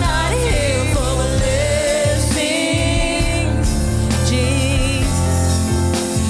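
Gospel worship music: a voice singing with vibrato over a band with a strong bass line.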